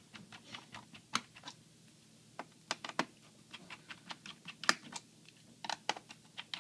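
Irregular light clicks and taps of a small screwdriver working screws out of a laptop's plastic bottom case, with a brief lull about two seconds in and one sharper click past the middle.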